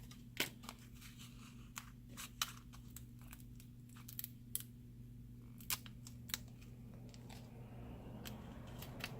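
Scattered faint clicks and crackles of a thin plastic pry tool being worked into the gap under a phone's cracked LCD to separate it from its adhesive, over a low steady hum.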